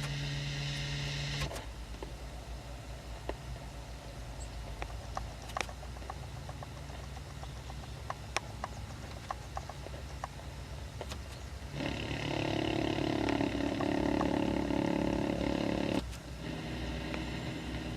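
Engine idling with scattered clicks. A steady multi-tone drone over it stops about a second and a half in, comes back loudest about 12 seconds in for around four seconds, and returns fainter near the end.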